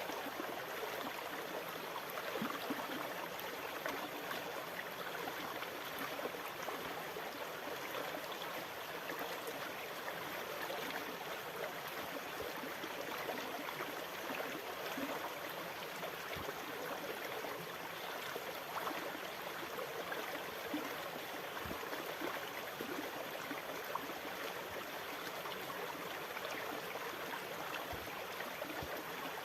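Continuous moving water: an even rushing hiss with faint scattered small ticks, steady in level with no rise and fall of separate waves.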